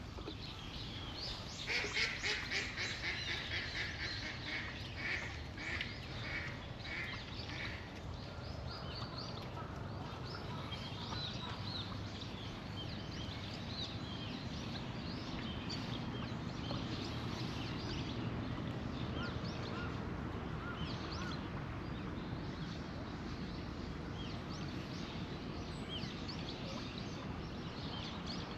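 A bird calling loudly and repeatedly, about two calls a second, fading away over some six seconds, followed by faint scattered chirping of small birds.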